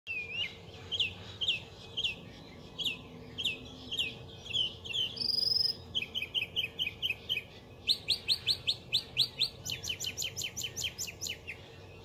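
Northern mockingbird singing. It runs through a string of different chirped phrases, repeating each one several times in quick succession before switching to the next, with a brief high whistle about five seconds in.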